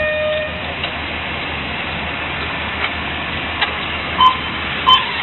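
Radio-controlled touring cars running on an asphalt race track, a steady whirring hiss. A long electronic tone ends about half a second in, and two short electronic beeps sound near the end.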